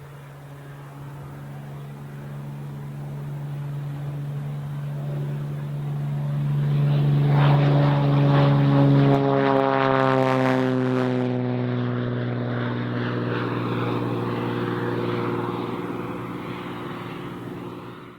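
Cessna T210N Turbo Centurion's turbocharged six-cylinder engine and propeller passing by: a steady drone that grows louder to a peak about halfway through, then drops in pitch as the plane goes past and slowly fades.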